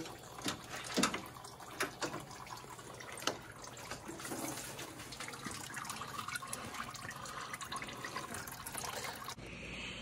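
Engine coolant trickling out of a drained plastic radiator, a steady soft running of liquid, with a few sharp clicks and knocks of parts being handled in the first few seconds; the sound stops suddenly near the end.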